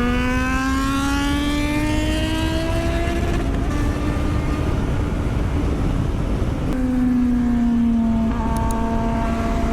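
Superbike engine under hard acceleration, its pitch rising steadily for about three seconds and then holding. About seven seconds in the pitch drops suddenly and then sags slowly, with heavy wind rush on the microphone.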